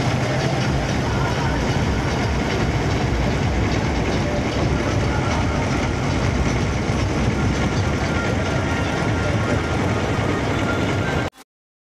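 A wooden river launch's engine running steadily, with voices from the crowd aboard over it. It cuts off suddenly near the end.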